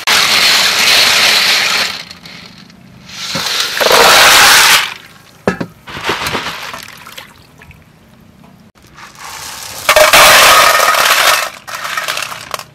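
Blood cockles being washed by hand in a basin of water: shells clattering and clinking against each other and the basin amid splashing, in three loud rushes with scattered clicks between them.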